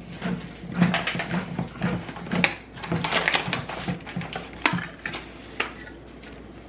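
Kitchen handling noises from packing food and utensils: a run of quick clicks, taps and rustles that thins out after about six seconds.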